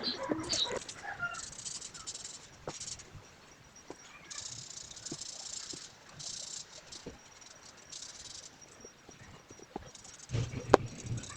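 Colouring tool scratching across paper in repeated short strokes, each a hiss lasting under a second, with a few light ticks. Near the end comes a low bump and then a single sharp click, the loudest sound.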